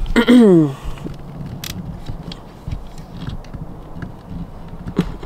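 A short vocal sound falling in pitch, like a murmured 'hmm', near the start, followed by quiet hand handling with a few small sharp clicks as grafting materials are worked.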